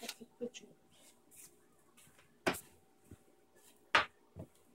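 Sharp knocks and clicks of objects being handled on a counter, the two loudest about two and a half and four seconds in, over a faint steady hum.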